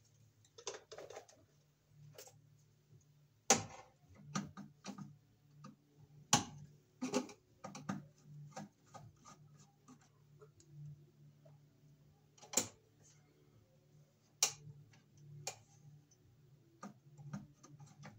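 Hands working a bare wire into a metal electrical panel: irregular clicks, taps and scrapes as the wire is pushed back into the box and bent toward the bar, with a few sharper knocks.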